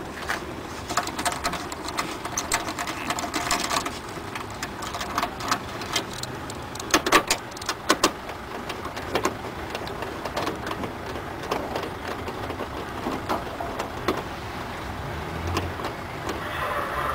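Irregular clicks, taps and scrapes of a hand nut driver turning out the top mounting bolts of a car headlight, with a few sharper knocks partway through, over a steady background noise that grows a little louder near the end.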